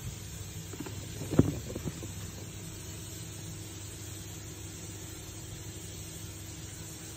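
Steady low hum and hiss of room noise. A brief cluster of knocks and rustles comes about a second in, loudest at about a second and a half, typical of a shoe being handled.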